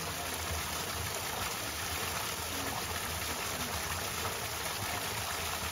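Steady rush of running water, like a stream flowing, with a low rumble underneath.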